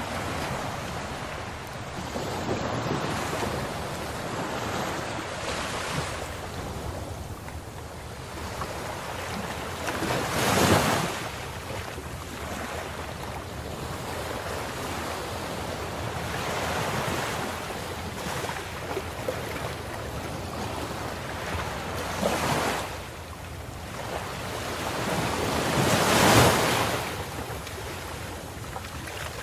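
Ocean surf: a continuous rush of waves washing in, with louder breakers about ten seconds in, again around twenty-two seconds, and loudest near twenty-six seconds.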